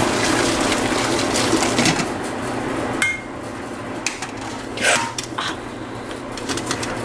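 Water and cooked spaghetti poured from a pot into a metal colander, the water rushing through for about three seconds and stopping suddenly. Then scattered metallic clanks and knocks as the colander is handled against the pot and sink.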